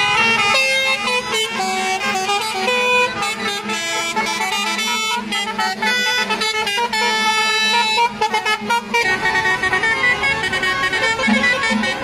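Lorry musical 'telolet' air horns playing a tune as a string of stepped notes over a steady low drone. About nine seconds in, this gives way to a denser, fuller sound.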